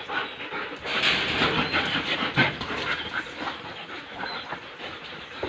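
German Shepherd dogs panting in quick, irregular breaths, loudest from about a second in to halfway through.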